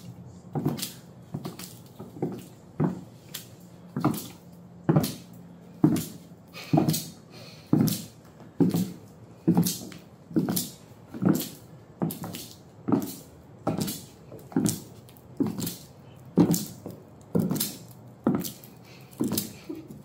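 Footsteps of a pair of 6-inch platform high heels walking at a steady pace, a little under one step a second, each step a sharp strike on the floor. The soles still have their protective plastic on, which makes a little noise with each step.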